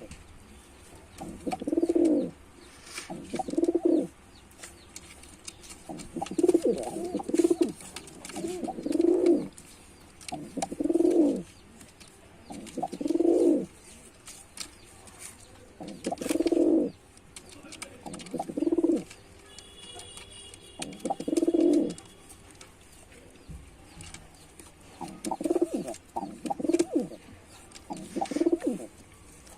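Male pigeon cooing: low, repeated coo phrases of about a second each, coming roughly every two seconds with short pauses between.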